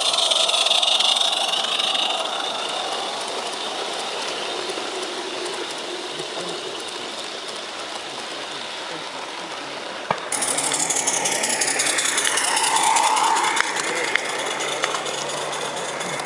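A 16mm-scale live-steam garden railway train running past close by: the locomotive hisses at first, then the long train of small carriages goes by with a fast, steady clicking and rattling of wheels on the track. About ten seconds in, the sound changes suddenly to a brighter clatter of carriages.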